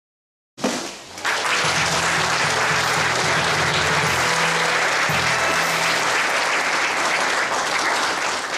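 Audience applauding, starting about half a second in and building to a steady level, with music playing beneath it.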